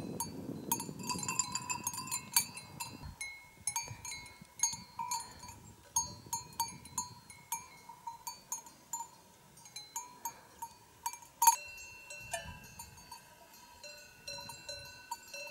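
Cowbells on grazing cattle clanking irregularly. Several bells of different pitch ring on, with one louder clang a little past the middle.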